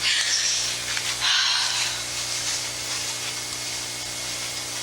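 Steady hiss with a low electrical hum underneath: the noisy background of a 1980s shot-on-video soundtrack. Two short swells of hiss come in the first two seconds.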